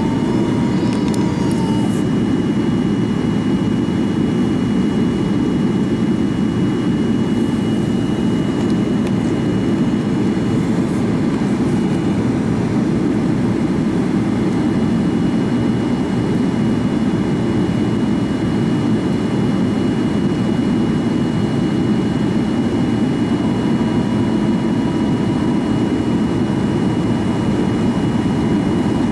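Steady in-flight cabin noise of a Boeing 737-800: a constant low rush of airflow and jet engine hum, with a thin high whine held over it throughout.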